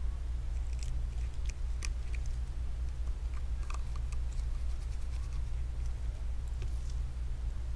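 Faint, scattered small clicks and scratches of a precision screwdriver turning a tiny screw into the metal bracket over a phone's front camera and ear speaker, with gloved fingers handling the parts, over a steady low hum.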